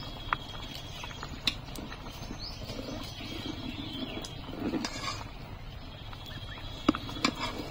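Rice boiling in an aluminium pot over a wood fire while a steel ladle stirs it. The ladle knocks sharply against the pot a few times, twice near the start and twice near the end.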